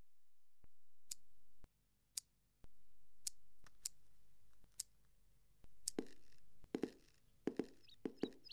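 Quiet room tone with scattered sharp clicks, sparse at first and closer together with soft knocks in the last few seconds. A few short chirps come in right at the end.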